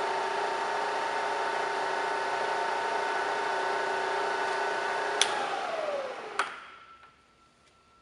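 Bridgeport Series 1 variable-speed vertical mill running with a steady whine. About five seconds in there is a click, and then the spindle drive winds down with a quickly falling whine, ending in a clunk.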